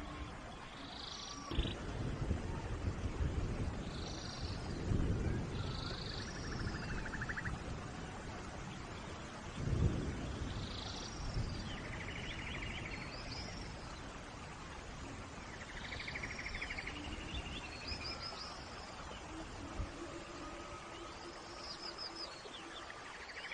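Steady rain hiss with birds calling over it: many short chirps and quick trills. A few low rumbles come and go in the first half.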